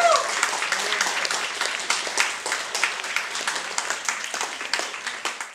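Audience applauding: dense clapping that thins out over a few seconds, with a brief cheer at the very start, then cuts off suddenly.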